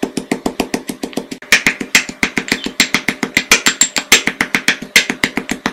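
Stone pestle pounding garlic, onion, chilli, galangal and shrimp paste in a granite mortar: rapid, even strikes of stone on stone through the crushed ingredients, about five a second.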